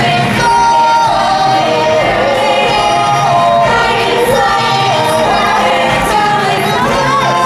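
Stage-musical finale: a chorus of voices singing a melody of long held notes over a full musical backing.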